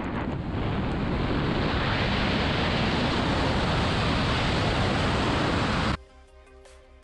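Wind rushing over a helmet-camera microphone during a BASE jumper's freefall off a cliff: a steady, loud rush of noise that builds in the first second. It cuts off suddenly about six seconds in, giving way to quiet music.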